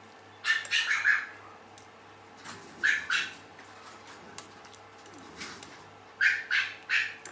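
An animal's short calls, mostly in pairs, four times over a faint steady hum.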